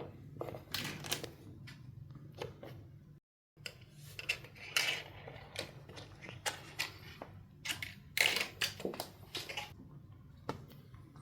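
Maine Coon kittens playing: scattered scrabbling, rustling and light knocks of paws and claws on surfaces and toys, over a low steady hum. The sound drops out briefly about three seconds in.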